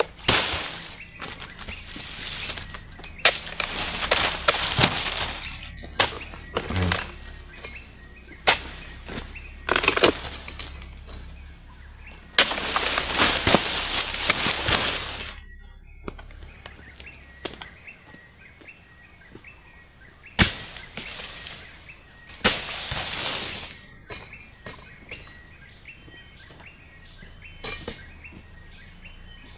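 Pole-mounted harvesting blade knocking and cutting into an oil palm's frond bases and fruit-bunch stalk. Cut fronds fall with long swishing, rustling crashes through the leaves, the longest lasting about three seconds near the middle.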